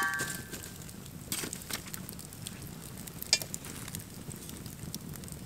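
Wood campfire crackling and popping in a stone fire pit. At the start, the ringing of a metal poker's clang against the fire grate dies away. A sharp metallic clink comes a little after three seconds in, as the steel grill grate is handled.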